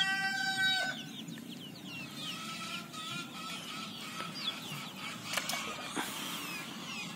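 A rooster crowing, one long held call that ends about a second in, followed by chickens and small birds calling with short falling chirps. Two brief knocks near the end.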